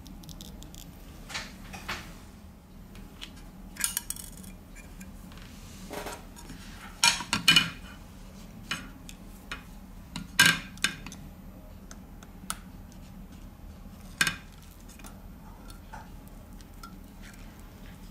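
Scattered sharp clicks and light metallic clinks of small hand tools and phone parts being handled during reassembly of a smartphone, loudest in a cluster about seven seconds in and again about ten seconds in.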